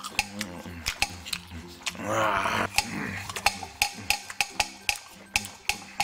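Light background music with a steady ticking beat. About two seconds in, a short, louder munching sound plays as the toy polar bear eats the apple.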